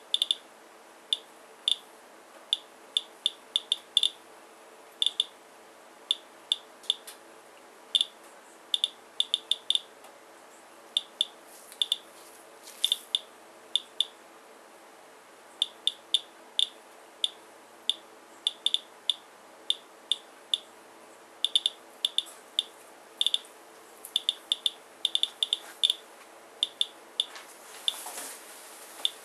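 Geiger counter beeping in short, high, irregularly spaced chirps, about two to three a second, as it counts radiation from a rain sample. That is a count rate around 157 counts per minute.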